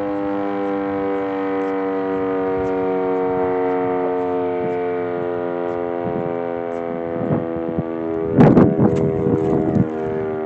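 Darley Champion rotating outdoor warning siren sounding its noon test, holding a steady pitch with many overtones. About eight seconds in, gusts of wind buffet the microphone.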